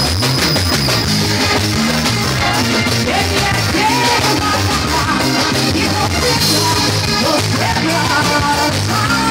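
Loud amplified pop-rock from a live band, with electric guitar, keyboard and drums under a lead singer's voice, heard from the audience.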